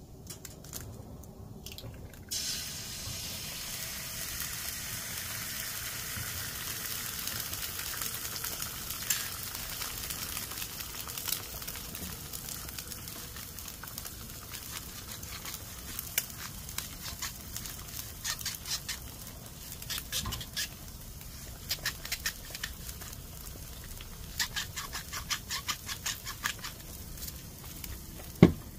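Food frying with a steady sizzle, with scattered clicks and small pops throughout; the sizzle starts about two seconds in.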